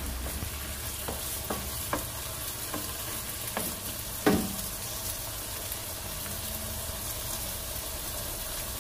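Diced pork and mixed vegetables sizzling in a reducing sauce in a nonstick wok while a wooden spoon stirs them, with a handful of short knocks of the spoon against the pan, the loudest about four seconds in.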